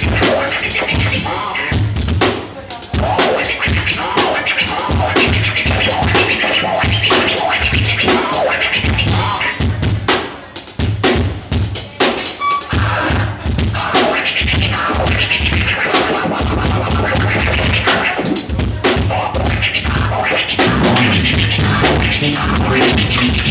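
Live band music with a drum kit playing a steady beat over a heavy bass line.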